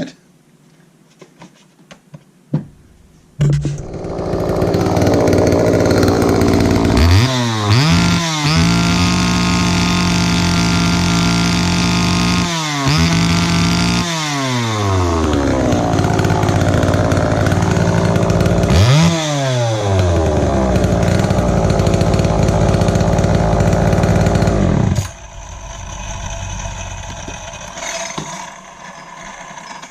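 A Homelite XL Automatic two-stroke chainsaw is started and run after reassembly, to test the repaired automatic oiler. It catches about three and a half seconds in and runs loudly, its revs dropping and climbing back three times. About 25 seconds in the level falls sharply to a much quieter sound.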